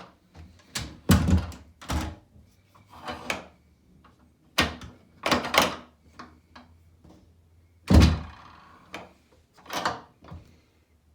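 Irregular knocks and thumps, about a dozen, the loudest about eight seconds in, over a faint steady low hum.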